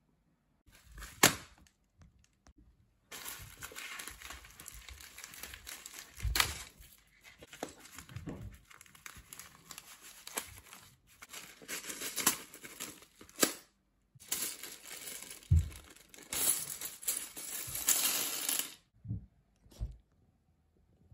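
A padded plastic mailer being cut open with scissors and handled: the mailer rustles as the blades work, in long noisy stretches broken by short pauses. A few sharp knocks come through, the loudest about a second in.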